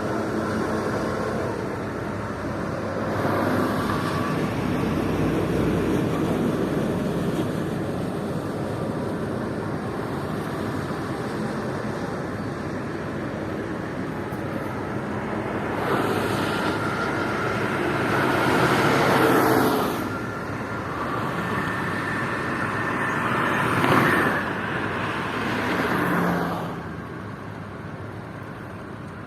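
Toll-road traffic: a steady hum of tyres and engines, with vehicles passing one after another. Louder pass-bys swell and fade a few times, the strongest a little past the middle, before the road quietens near the end.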